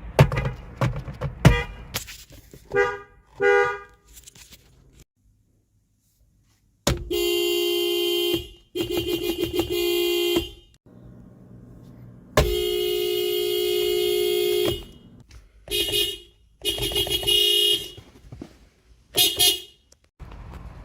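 Toyota car horns honking one clip after another. First come a few short toots, then after a brief pause two blasts of about a second and a half, a longer blast of about two seconds, and several short honks.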